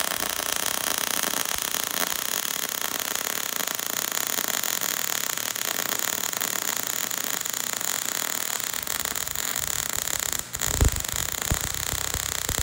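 MIG welder arc frying steadily while it tacks a steel door hinge back on, at a heat setting raised one level for more penetration. About ten seconds in the arc stops for a moment, then strikes again with a harsher crackle.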